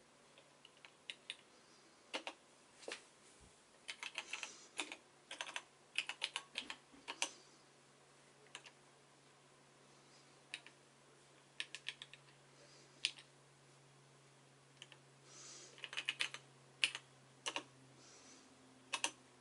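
Keystrokes on a Tandy TRS-80 Model 100's keyboard: sharp key clicks typed in short runs with pauses between, over a faint steady low hum.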